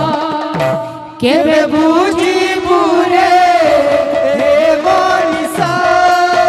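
Live kirtan music: a woman sings a devotional song through a microphone, with barrel drums struck in a steady rhythm and hand cymbals. About a second in the voice briefly drops away, then comes back with an upward slide into a new line sung with vibrato.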